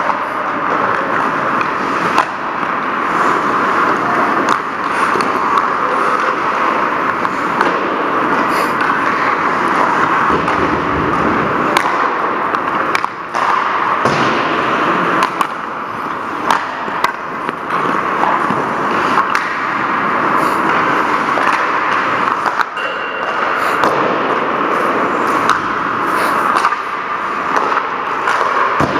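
Ice hockey play: skate blades scraping and carving on the ice as a steady hiss, with irregular sharp clacks of sticks and puck throughout. A brief high tone sounds about two-thirds of the way through.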